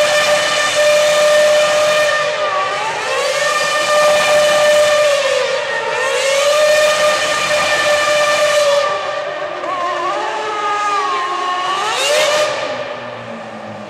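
2008 McLaren-Mercedes MP4-23 Formula 1 car's 2.4-litre V8 held at a high, steady scream during wheelspinning donuts, with hiss from the spinning tyres. The pitch dips and climbs back several times. Near the end it revs up once more, then fades as the car pulls away.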